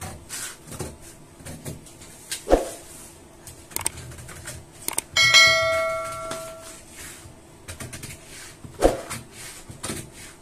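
A subscribe-button bell chime, a short ringing ding of several clear tones fading over about a second and a half, sounds about five seconds in. Around it are the rustle and snips of tailor's scissors cutting a paper pattern and paper being handled, with a couple of dull knocks.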